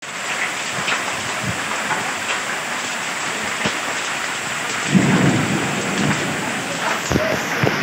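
Steady heavy rain, with scattered drops ticking close by and a brief low rumble of thunder about five seconds in.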